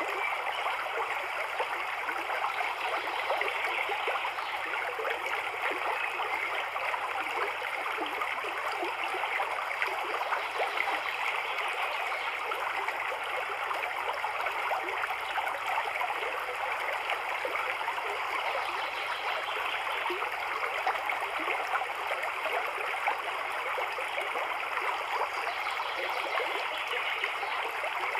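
Steady sound of running, trickling water, going on without a break.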